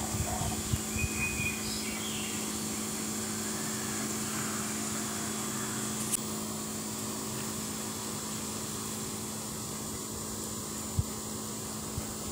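Steady mechanical hum, with a few faint chirps in the first two seconds and a single click about six seconds in.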